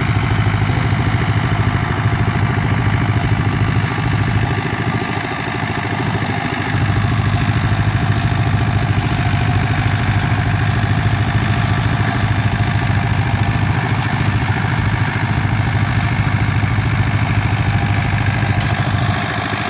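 Ford 5000 tractor engine running steadily, with a deep, even engine hum. It goes briefly quieter for a couple of seconds about five seconds in, then returns to its earlier level.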